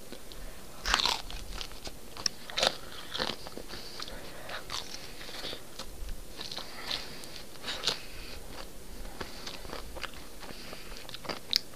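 A person chewing a mouthful of crispy thin-crust pizza, with short crunches coming at irregular moments.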